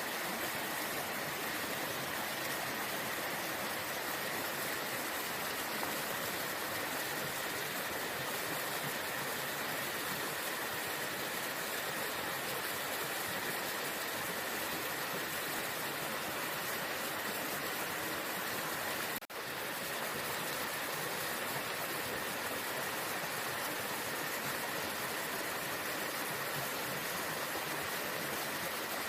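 Waterfall: steady rushing water that cuts out for an instant about two-thirds of the way through.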